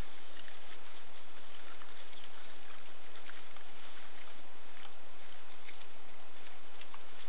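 Wild boar feeding in snow: scattered soft clicks and crunches of chewing and rooting, over a steady hiss with a faint high whine and low hum from the recording device.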